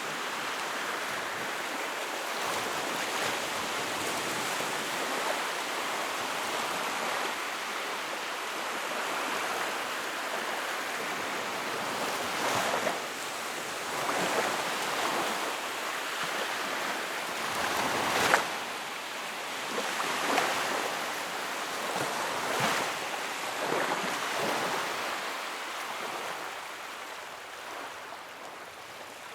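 Wood fire crackling in a fireplace: a steady hiss of burning with scattered sharp pops, thickest in the second half, the loudest pop about eighteen seconds in.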